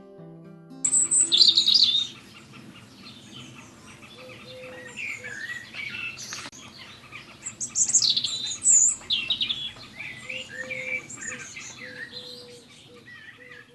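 Songbirds chirping and warbling in quick, overlapping phrases, loudest about a second in and again around eight seconds. The birdsong comes in just as the last notes of an acoustic guitar fade out.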